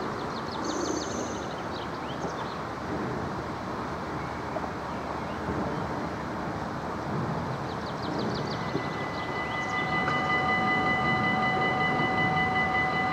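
Steady background rumble with a few short high chirps; about ten seconds in, the level crossing's electronic warning bell starts ringing with a bright, steady multi-tone ring, signalling that a train is approaching.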